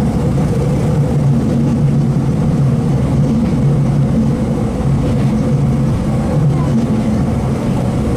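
Kobe Electric Railway electric train running, heard from inside the car: steady rumbling running noise with a steady low hum from the motors.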